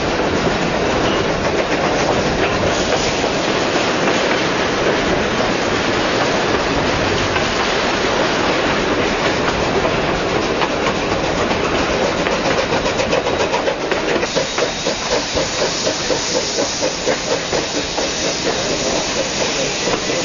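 Train running noise heard from an open carriage window, with wheels on the rails. About two-thirds of the way in, the exhaust beat of Queensland Rail's BB18¼ class steam locomotive 1079, working up the Kuranda range grade, comes through as an even chuffing of about three beats a second.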